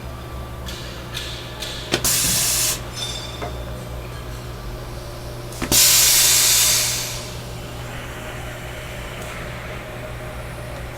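CNC lathe running with a steady low hum, broken by two loud hissing blasts: a short one about two seconds in, and a longer, louder one near six seconds in that fades away.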